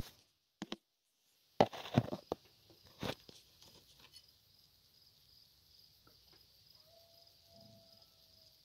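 Clicks and a burst of rustling knocks from handling in the first few seconds, then a steady, pulsing high chirring of crickets. Near the end a faint, long, even-pitched note sounds for about a second and a half.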